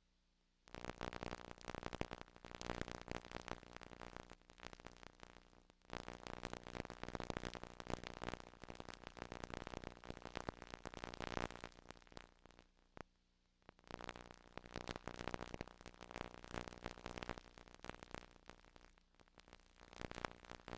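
Faint, dense crackling static with a low steady hum. It cuts out briefly at the start and again about thirteen seconds in.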